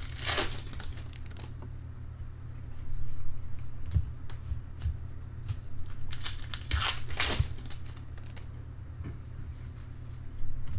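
2013 Bowman Draft trading-card pack wrappers being torn open and crinkled, with the strongest tearing just after the start and again about seven seconds in, over a steady low hum.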